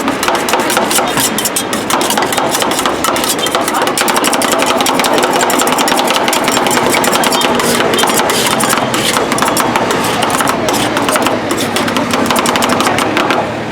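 Metal spatulas chopping and scraping rapidly on the steel cold plate of a rolled ice cream stand, crushing fruit into the freezing cream, with a dense run of sharp clacks.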